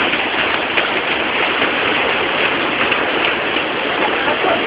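Heavy tropical downpour pouring steadily, a dense, even hiss of rain with no let-up.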